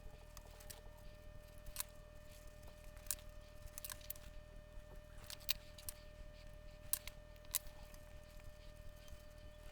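Small, sharp clicks and taps of hand tools at a soldering bench, about seven scattered irregularly, over a steady low electrical hum and a thin steady tone.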